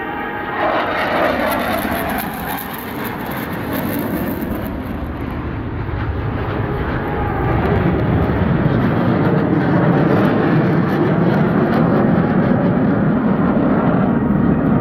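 Jet noise from the Blue Angels' F/A-18 Hornets flying overhead: a broad, steady roar with a falling sweep about a second in. It grows louder and deeper from about halfway through.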